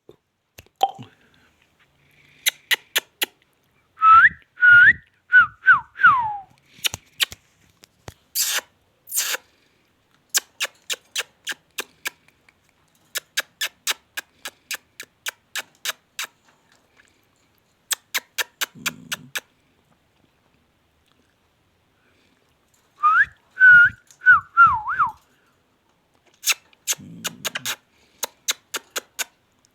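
Ringneck parrot whistling a short learned phrase of five or six notes, some sliding down in pitch, twice: about four seconds in and again near the end. Between the phrases come runs of sharp clicks, several a second.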